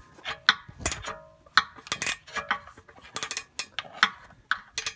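A 14 mm flex-head ratcheting wrench working a flex-plate-to-torque-converter nut loose: a string of irregular sharp metallic clicks and clinks, each with a brief ring.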